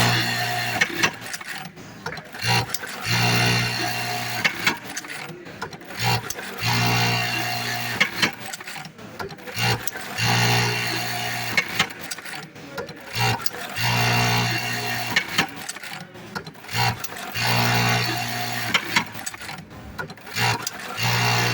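Industrial buttonhole sewing machine running repeated stitching cycles, each a humming burst of about a second recurring every three and a half seconds or so, with mechanical clicks between the cycles.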